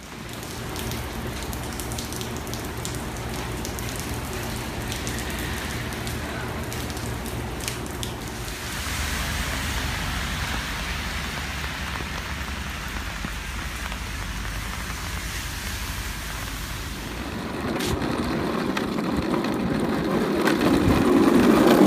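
Steady rain falling, with a faint low hum under it for the first several seconds. A louder low rushing sound builds over the last few seconds.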